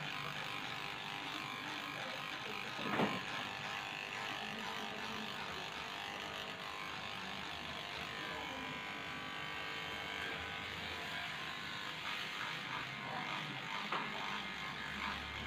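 Electric dog grooming clippers running steadily as they shave through a matted coat. There is a brief knock about three seconds in.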